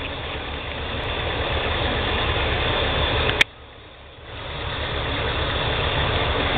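Tractor engine running steadily with an even low throb. About three and a half seconds in there is a sharp click, the sound drops out for about a second, then comes back.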